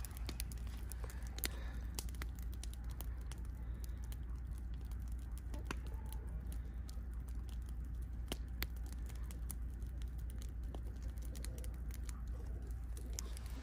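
Brush burn pile of branches burning, crackling with irregular sharp pops and snaps, a few louder than the rest, over a steady low rumble.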